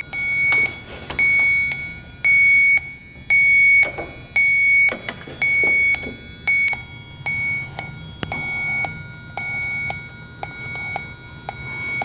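Snap-on electronic refrigerant leak detector beeping at a steady rate of about one high beep a second. This is its ready signal after free-air calibration, showing no refrigerant sensed at the sniffer tip.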